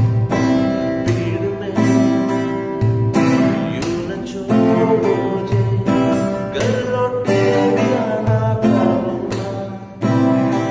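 Steel-string acoustic guitar strummed slowly, about one chord a second. A man's voice sings softly over it for a few seconds in the middle.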